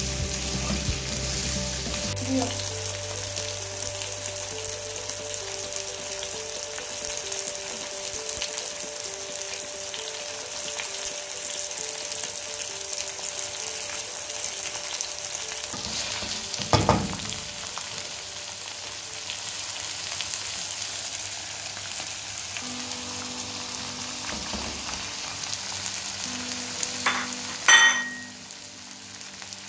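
Chicken pieces frying in hot oil in a nonstick pan, sizzling steadily while they are stirred with a wooden spatula. A sharp knock comes a little past halfway and a louder clatter near the end, after which the sizzling drops down.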